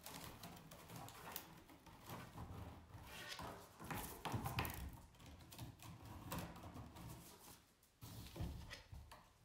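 Damp round reed spokes rustling and clicking against each other as they are bent upright by hand from a woven basket base, called upsetting the spokes. The sound is faint and irregular, with many small clicks.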